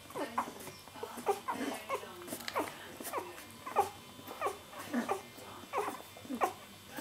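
Newborn puppies squeaking and whimpering while suckling: a dozen or so short high squeaks, each falling in pitch, about two a second.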